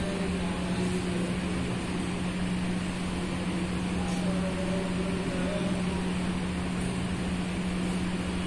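Steady mechanical hum with a constant low drone and an even rushing noise over it, unchanging throughout.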